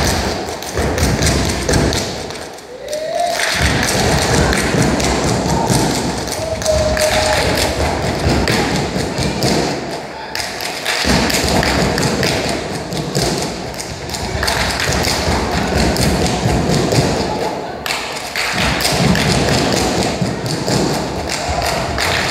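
Step dancers' rhythmic stomps and hand claps on a stage: dense, loud percussive strikes that break off briefly a few times.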